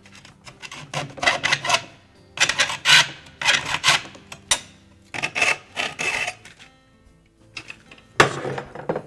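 Hacksaw cutting into the edge of a refrigerator door shelf retainer bar, scoring it so it can be snapped off to length. It comes in several runs of quick back-and-forth strokes with short pauses between them.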